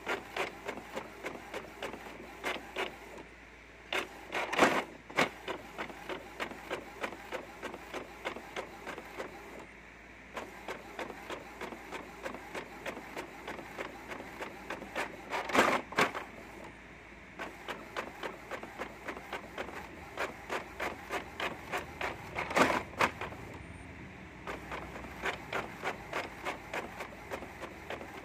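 Inkjet printer's print-head carriage shuttling back and forth across the page, making a rapid, regular ticking run with a few louder clatters and short pauses between passes.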